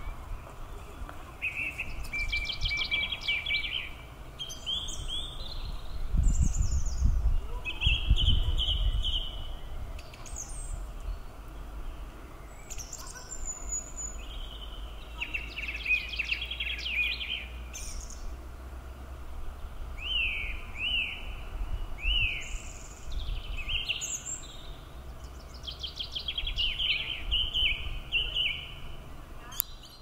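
Songbirds singing, short high trilled and sweeping phrases every few seconds, over a steady low outdoor hum. Between about six and nine seconds in a louder low rumble comes and goes.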